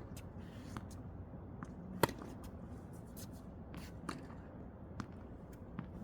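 Tennis ball struck by a racket during a rally: one sharp, loud hit about two seconds in, with fainter hits or bounces farther off at one- to two-second intervals.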